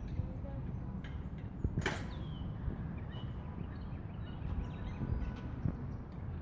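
Low rumble of wind and handling noise on a handheld phone microphone, with one sharp click about two seconds in.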